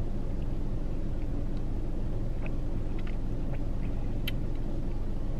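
Steady low rumble of a car idling, heard from inside the cabin, with a few faint small clicks.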